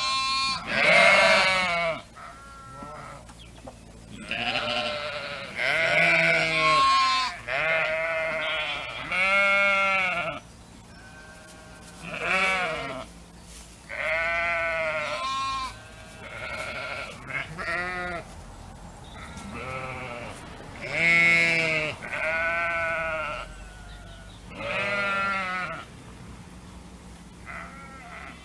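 Several sheep or goat-like livestock bleating over and over, one call after another, each about a second long and arching up and down in pitch, some higher-voiced than others.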